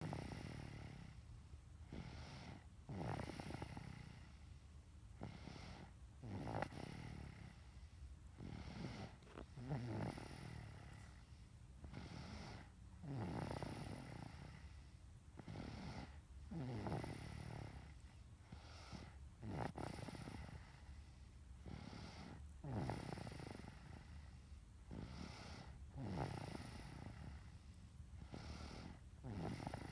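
Snoring in a slow, even rhythm, with a rasping breath roughly every three seconds.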